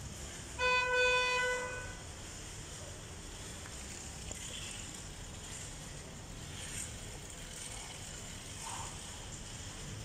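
A vehicle horn honks once, one flat steady note about a second long, over a low steady street background.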